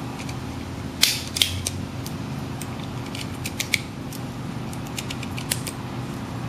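Metal airsoft cartridge shells clicking as they are pressed one by one into a Marushin Glock 21 magazine. The clicks come at an uneven pace, the sharpest about a second in, over a steady low hum.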